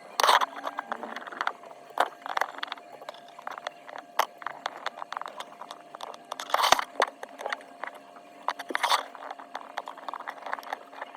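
Small repair tools clicking, tapping and scraping on a phone during a back-glass replacement, with many light ticks and three louder scraping bursts: one at the start, one about two-thirds through and one near the end.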